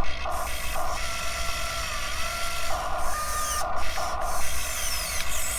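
Top Race metal RC excavator's electric motors and gearboxes whining as it digs. The whine cuts in and out and shifts in pitch every half second or so as the arm and bucket motions start and stop.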